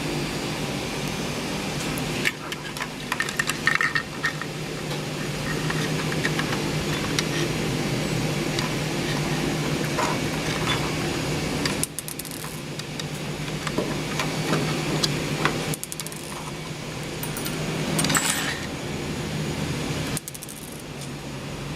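Small metal parts and tools of a 3D printer hotend clicking and clinking as they are handled and fitted, in scattered clusters over a steady background hum.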